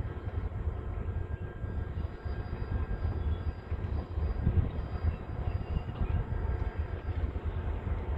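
Diesel locomotive rumbling steadily as it hauls a passenger train, mixed with wind buffeting the microphone.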